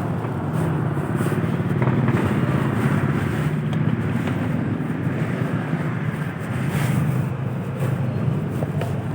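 A road vehicle's engine running steadily while under way, a constant low drone with road noise over it.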